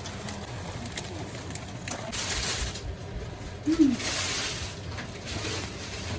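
Low cooing of a dove, a few short calls, the clearest about four seconds in, with two stretches of hissing noise around it.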